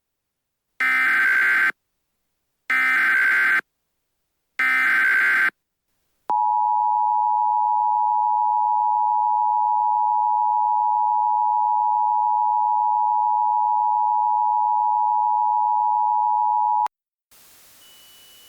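Emergency Alert System broadcast tones. First come three short, evenly spaced bursts of the SAME digital header, with a screechy data sound. Then the two-tone EAS attention signal holds steady for about ten seconds and stops abruptly. Faint hiss follows near the end.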